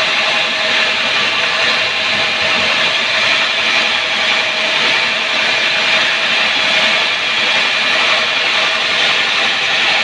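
Sawmill saw cutting lengthwise through a sengon log, a steady, unbroken rasping cut.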